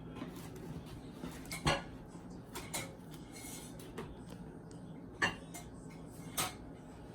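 Kitchen dishes and utensils clinking as ingredients are handled: five or six separate knocks and clinks, roughly one a second, over a faint steady hum.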